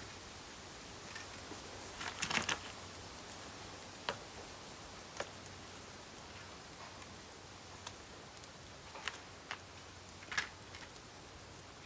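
Bamboo burning in a campfire: scattered sharp pops and crackles over a faint steady hiss. A quick cluster of snaps comes about two seconds in, then single pops every second or so.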